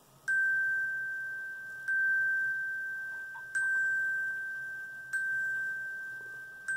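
A tuned metal bar, glockenspiel-like, struck five times with a mallet at a slow, even pace. It is the same high note each time, and each ringing tone fades before the next strike. The repeated identical note renders a row of identical triangles in sound: a plain sequence of elements.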